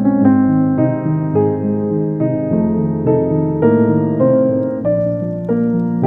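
Background piano music: a gentle melody over chords, a new note about every half second.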